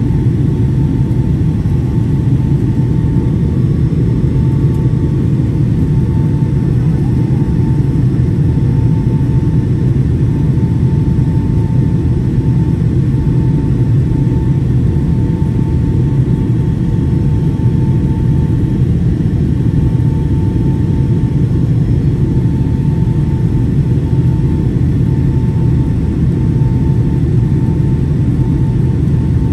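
Steady low cabin roar of a Boeing 757-200 in flight, heard from a window seat over the wing: engine and airflow noise, with a faint steady high tone above it.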